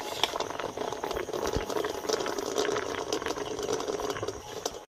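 Water boiling hard in an iron kadai used as a steamer, a steady bubbling hiss with many small pops and clicks, and a single low knock about a second and a half in.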